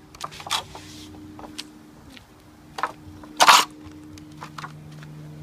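Scrap wooden boards knocking and scraping together as pieces are pulled from a pile: a few light knocks, and one louder clack about three and a half seconds in, over a steady low hum.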